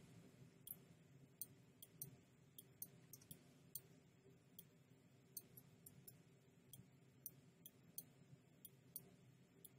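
Faint computer mouse clicks, irregular, about two or three a second, as anchor points of a pen-tool path are placed one after another, over a faint steady room hum.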